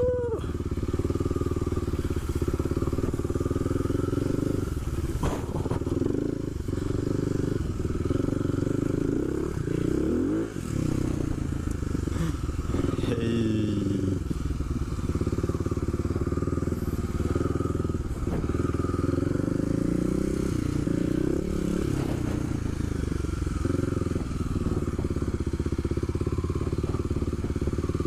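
Kawasaki KLX250 SF supermoto's single-cylinder four-stroke engine running steadily as the bike is ridden off-road, its revs rising and falling a couple of times midway, with a few knocks and clatters.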